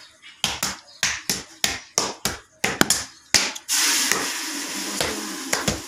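A metal blade tapping and chopping against a steel plate, about three sharp strikes a second. Past the halfway point the strikes give way to a steady rushing noise with a low hum that slowly fades.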